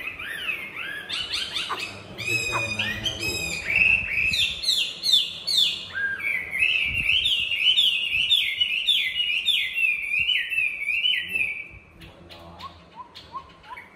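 Caged Chinese hwamei (melodious laughingthrush) in full song: loud, varied whistled phrases and quick trills, then a long run of repeated falling whistles about two a second. The song breaks off about twelve seconds in, leaving only a few soft, lower notes.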